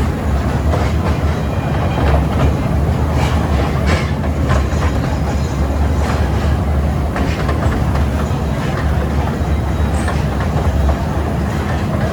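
Toy train running along its track: a steady low rumble with irregular clacks from the wheels over the rails.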